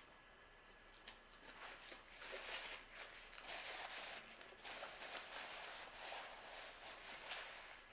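Faint eating sounds: a mouthful of pizza being chewed while a paper napkin crinkles and rustles against the mouth and hands, starting about a second and a half in.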